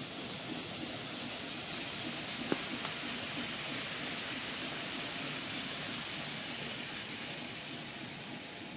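N-gauge model train running on layout track: a steady hiss of wheels and motor that swells in the middle as it passes close and eases off toward the end, with a single sharp click about two and a half seconds in.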